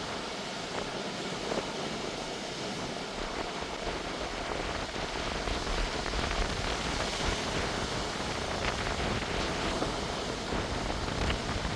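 Pacific Ocean surf breaking and washing against the shore, a steady rushing noise that swells louder about halfway through.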